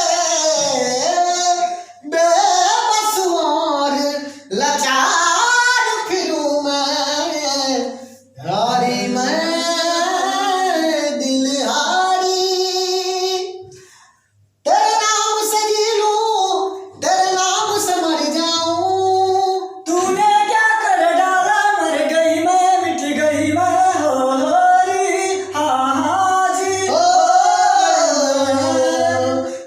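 A singer with a high voice sings a melodic song unaccompanied or nearly so, in long gliding phrases separated by short breaths. There is a brief silence about halfway through.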